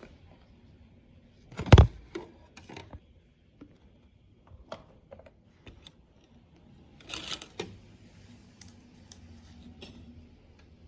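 Scattered knocks and clicks of objects being handled, with a loud thump about two seconds in and a short scraping rattle around seven seconds.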